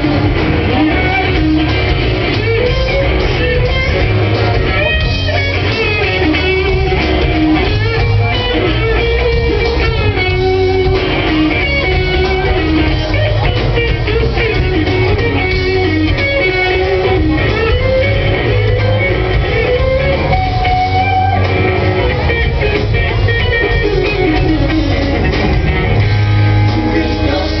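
Live rock band playing an instrumental passage: an electric guitar lead line with bending notes over bass guitar.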